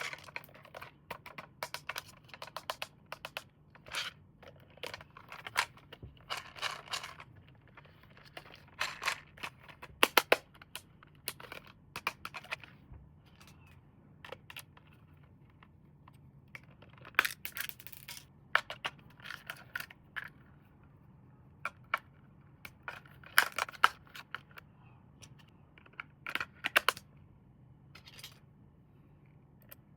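Hands handling plastic toys and packaging: irregular sharp clicks and short crinkling rustles, with a faint steady hum underneath.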